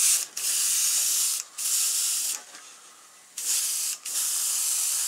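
Airbrush spraying pearl white paint: a high hiss of air in several bursts as the trigger is pressed and let go, with short breaks and a pause of about a second just past the middle.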